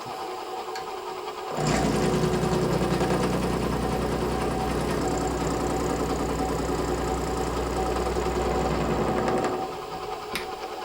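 Milling machine with a 90-degree end mill cutting the V slot in a cast Zamac block: a steady machine sound with a held hum. The louder cut comes in about a second and a half in and drops back to the quieter sound of the spindle running near the end.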